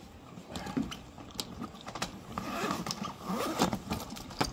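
A hard-sided fishing bakkan (tackle bag) being handled and its lid lifted open: scattered light knocks, scrapes and rustling, with a sharper click near the end.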